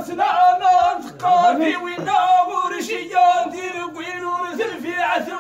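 A man's voice chanting poetry unaccompanied, sliding between short held notes in a wavering melody.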